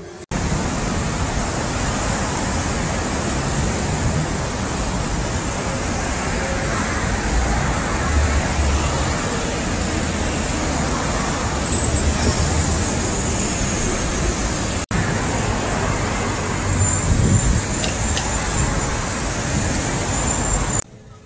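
Road traffic on a busy city street: a steady wash of cars and motor scooters driving past, swelling as vehicles go by.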